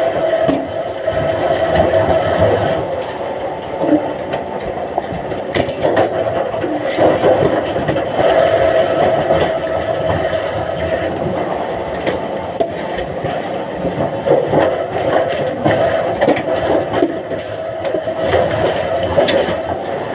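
Heavy log-handling and debarking machinery running: a steady mechanical drone with a held hum, and frequent rattles and knocks throughout.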